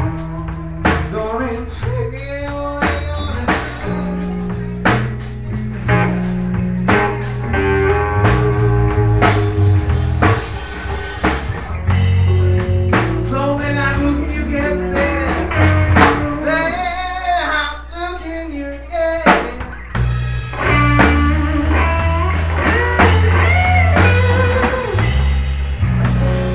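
Live blues band playing a slow blues, with electric guitar notes bending over bass and a drum kit.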